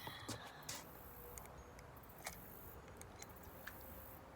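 Faint, scattered clicks and ticks from handling a fishing rod and reel while casting the line out.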